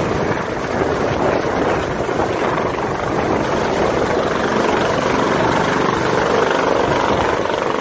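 Large helicopter hovering just above a helipad: steady rotor and engine noise with a constant high turbine whine.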